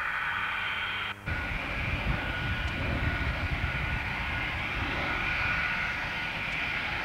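Jet engines of English Electric Lightnings, Rolls-Royce Avon turbojets, running on the runway: a steady high whine over a low rumble. The sound drops out briefly about a second in, and the rumble is heavier after it.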